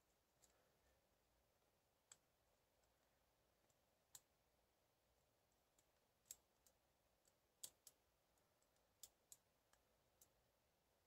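Faint, irregular clicking of a lock pick and tension wrench working the pins of a Brinks lock, a dozen or so light ticks spaced unevenly.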